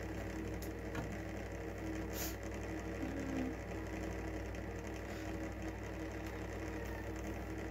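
Steady low mechanical hum, with a few faint clicks and a brief rustle about two seconds in.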